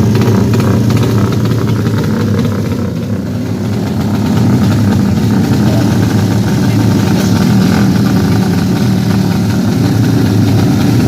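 Drag-racing motorcycle engines running loudly in a continuous din, with a brief slight dip a few seconds in.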